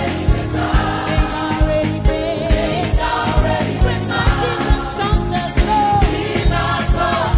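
Live gospel praise music: a choir and a female lead singer over a band with a steady drum beat, bass guitar and keyboards.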